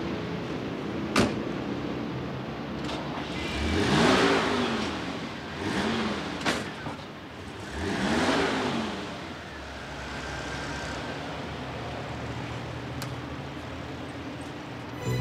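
A car door shuts about a second in, then cars drive past close by. Their engine and tyre noise swells and fades three times, rising and falling in pitch with each pass.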